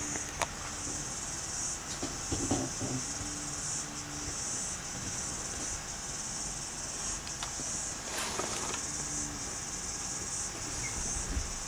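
Steady high-pitched chirring of insects, broken into pulses about a second long, with a few brief knocks and rustles about two and a half and eight seconds in.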